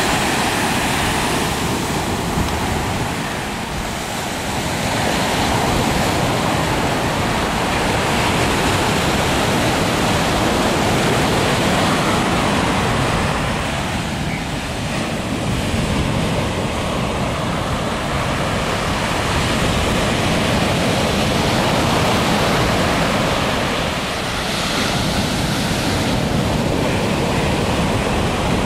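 Ocean surf with wind buffeting the microphone: a loud, steady rush that eases briefly three times, about ten seconds apart.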